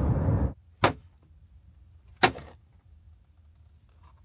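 A steady noise cuts off about half a second in. Then come two short, sharp knocks about a second and a half apart, over a faint low hum.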